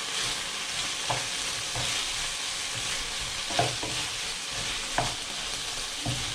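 Food sizzling steadily in a frying pan, with a utensil knocking against the pan about five times as it is stirred.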